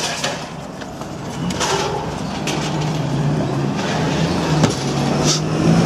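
Street noise with a car engine running close by, its steady hum coming in about halfway and growing louder. A few short knocks sound over it.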